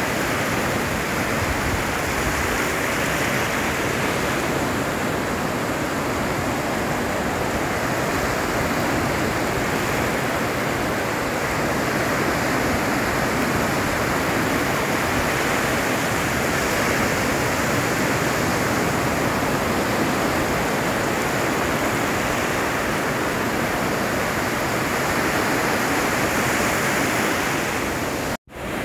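Ocean surf breaking and washing up a sandy beach: a steady rush of white water. It cuts out for a moment near the end.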